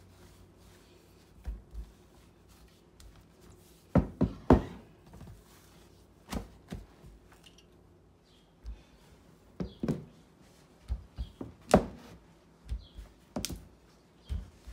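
A rolling pin knocking and thudding on a worktop as pizza dough is rolled out: irregular knocks, the loudest a cluster about four seconds in and one near twelve seconds.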